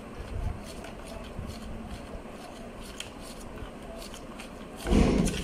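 Metal spoon stirring and scraping through shaving cream and glue in a bowl: faint soft scraping with light clicks. A short, louder sound comes near the end.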